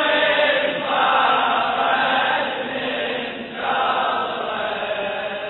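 Men's voices chanting a Shia latmiya lament in unison, a dense and sustained group chant.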